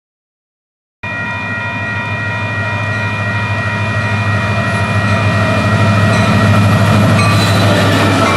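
Union Pacific double-stack container train approaching and passing a grade crossing, its diesel locomotives' horn held in one long chord over the deep rumble of the engines. The sound cuts in about a second in and grows steadily louder, and the horn's pitch shifts near the end as the lead locomotive goes by.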